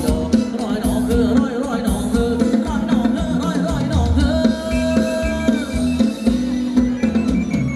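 Live band playing upbeat Thai ramwong dance music with singing over drums and bass, with a held note about halfway through.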